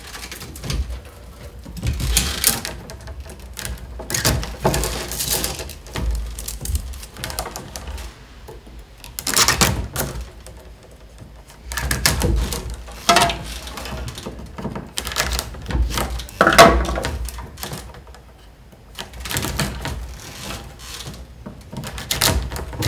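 Peeled willow rods being pushed one after another into the woven base of a round wicker tray, giving irregular clusters of clicks, creaks and rustles of wicker, loudest about two-thirds of the way through.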